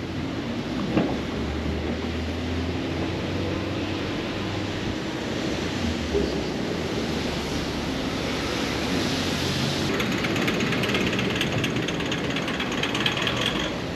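Busy city street traffic: the low hum of idling and slow-moving cars at a congested intersection. In the last few seconds a fast mechanical rattle of rapid clicks joins in and cuts off just before the end.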